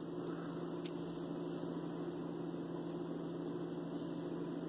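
Steady low hum with a faint hiss, and a single faint click about a second in.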